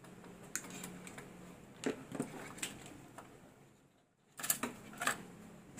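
Pliers and a knife working a short electrical jumper wire, cutting it and scraping off its insulation. Heard as a run of sharp clicks and scrapes, with a second cluster near the end.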